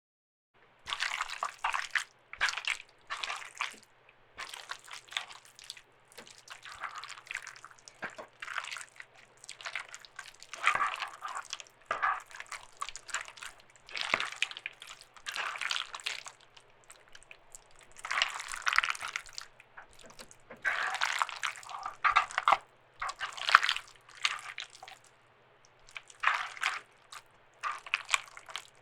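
Wet squelching and squishing of raw meat being stirred and mashed, in irregular bursts, starting about a second in. A gore sound effect.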